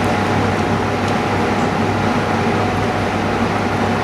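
Steady mechanical hum and hiss of running equipment, with a constant low drone and a faint steady whine above it.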